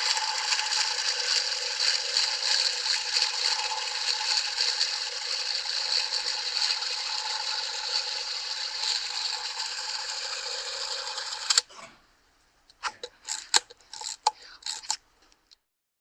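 Camera winding mechanism running steadily with a whirring, ratcheting sound for about twelve seconds, stopping with a sharp click. After a short pause, several small mechanical camera clicks follow.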